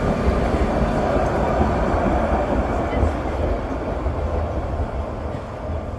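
Sóller tram running on its rails, a steady rumble with a faint whine that eases off over the last few seconds.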